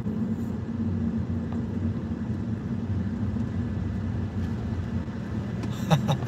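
Steady low road and engine rumble inside the cabin of a moving Audi A3 at highway speed.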